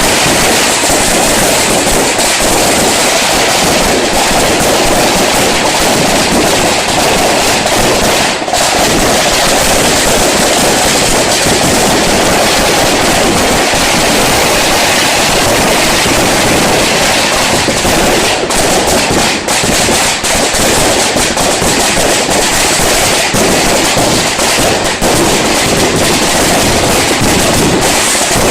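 Fireworks going off in a dense, continuous barrage of rapid cracks and bangs, loud and unbroken throughout.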